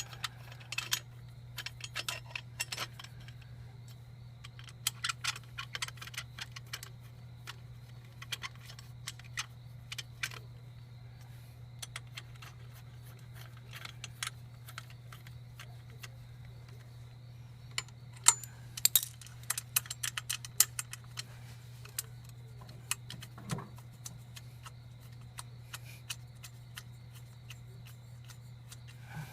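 Hand tools and steel bolts clicking and clinking as the bolts of a scooter's radiator backing plate are fitted with a wrench, a dense run of sharper clicks about two-thirds of the way through. A steady low hum runs underneath.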